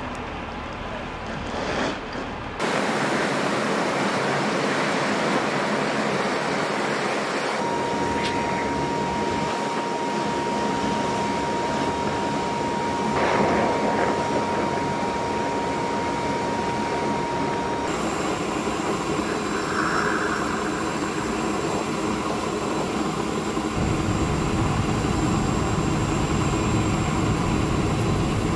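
Steady engine noise of a military transport aircraft on an airfield, with a steady whine through the middle. A deeper engine rumble comes in near the end as the aircraft climbs away.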